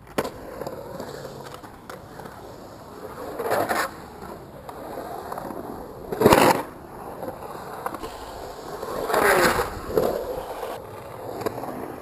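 Skateboard wheels rolling on the concrete of an empty pool-style bowl, a steady rumble broken by four loud grinding surges about three seconds apart as the board carves up to the coping and tile at the top of the walls.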